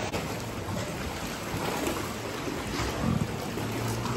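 Sea water sloshing and lapping against the rock inside a sea cave, a steady watery wash.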